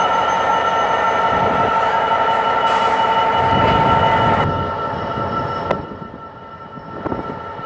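Class 66 diesel freight locomotive passing with a loud rumble and a steady high-pitched whine over it. About four and a half seconds in the sound drops to a quieter rumble with a few sharp clicks.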